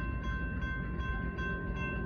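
Grade-crossing warning bell ringing at about two strokes a second over the low rumble of freight cars rolling past on the rails.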